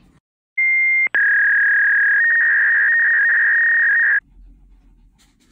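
Electronic beep tones edited in over a title card: a short high beep about half a second in, then a slightly lower steady tone held for about three seconds that cuts off suddenly.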